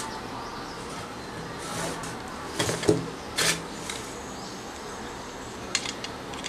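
Handling noise from a small plastic phone power adapter and its alligator-clip leads: a few short clicks and scrapes, the loudest about three seconds in, with another pair near the end, over a steady background hiss.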